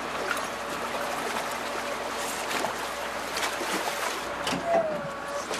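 Harbour water sloshing and splashing irregularly as a large tiger shark is dragged by rope through the shallows and up a ramp, with a heavier splash about five seconds in. A faint steady hum runs underneath.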